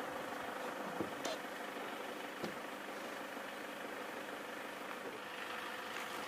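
A steady engine-like hum with a hiss of background noise, and a few faint clicks about a second in and at about two and a half seconds.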